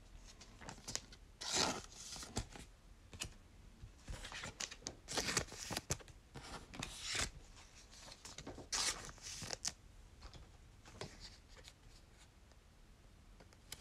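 Faint, intermittent rustling and tearing as a foil trading-card pack wrapper is opened and cards are handled, in short scraping bursts every second or two.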